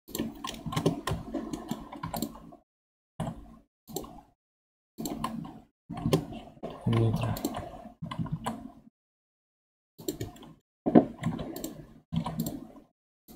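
Computer keyboard keys and mouse buttons clicking in irregular clusters, with short stretches of dead silence between them.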